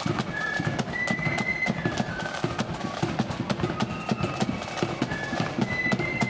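Marching flute band playing a tune, the flute melody moving in held notes, over a dense, steady patter of drum strokes.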